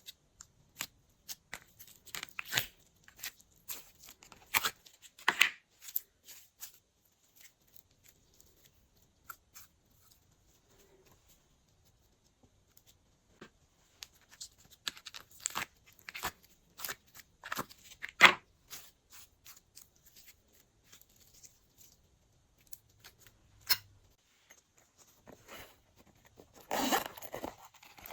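Glossy slime being worked by hand, making sticky clicks, crackles and little pops in scattered clusters, with quieter lulls between.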